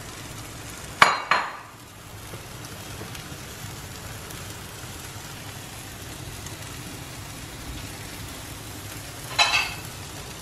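Eggs and sliced sausage sizzling steadily in a frying pan on a gas hob. Two sharp knocks about a second in, and a short clatter near the end.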